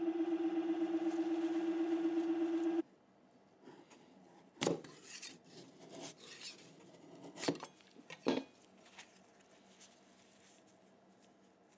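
Elegoo Mercury Plus wash station's motor running with a steady hum that cuts off suddenly about three seconds in. Then a metal scraper scraping and prying a resin 3D-printed stamp off the aluminium build plate, with three sharp scrapes and snaps.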